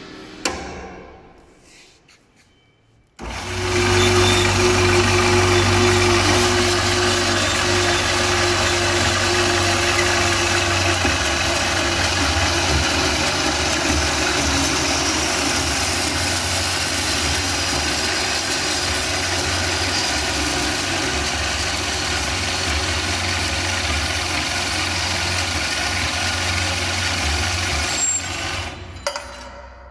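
MIVA 250 M metal-cutting band saw: after a single knock, the motor starts suddenly about three seconds in and the blade runs steadily through a rectangular metal tube, with a low hum and a steady tone early on. The saw stops near the end as the cut finishes.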